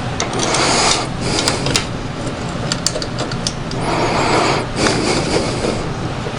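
Hands working metal parts and bolts on a small-engine carburetor assembly: scraping and rubbing twice, with scattered light metallic clicks, over a steady low hum.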